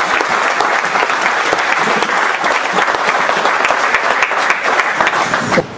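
Audience applauding: a dense, steady clapping that stops abruptly near the end.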